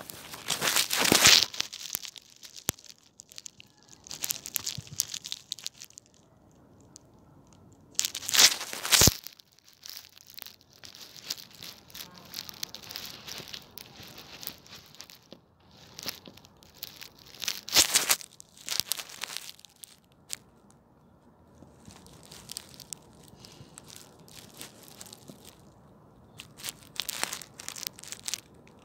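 Grass crackling and rustling right against the microphone in irregular bursts, the loudest about a second in, about eight seconds in and about eighteen seconds in, with quieter crinkling between.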